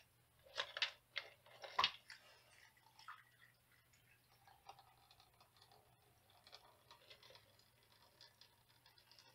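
A few clicks and knocks of the red coffee can against the plastic filter cone in the first two seconds, then faint ticking and trickling as the blue copper solution is poured slowly into a paper coffee filter.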